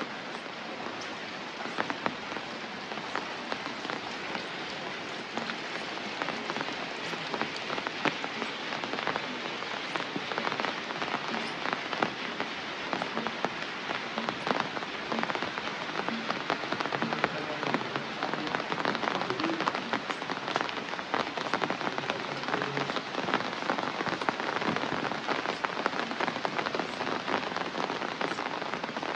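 Rain falling steadily, with many individual drops striking close by; it grows a little heavier after about ten seconds.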